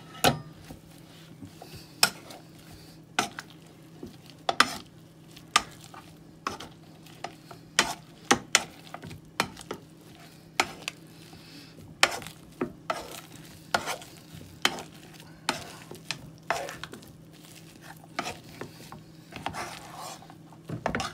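Potato masher working boiled potatoes and milk in a pot, knocking against the pot in irregular strokes about once a second, over a steady low hum.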